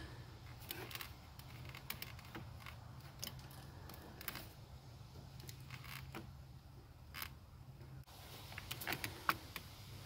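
Faint scattered plastic clicks and small handling noises as fingers work a wire's terminal pin into a multi-pin wiring harness connector, over a low steady hum. A couple of slightly sharper clicks come late, about seven and nine seconds in.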